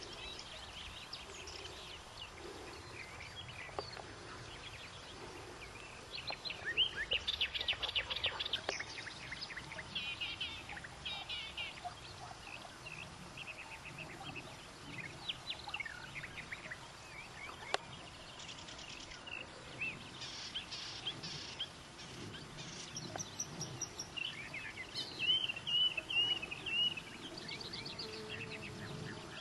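Wild songbirds chirping and singing over a low outdoor background. Rapid trills come about seven seconds in, and a warbling phrase near the end.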